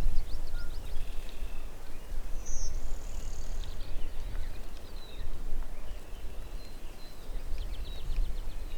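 Wild birds calling: a quick run of short chirps near the start and again near the end, and a higher whistled note around three seconds in, over a steady low rumble.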